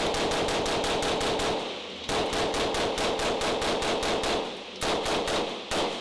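A gun fired very rapidly, about seven shots a second, in two long strings with a short break between them, then two single shots near the end.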